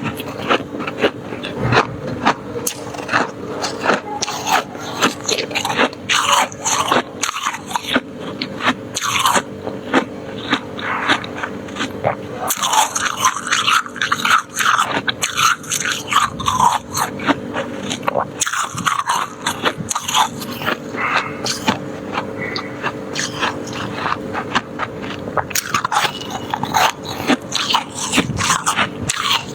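Close-miked biting and chewing of freezer frost, a dense run of crisp, irregular crunches.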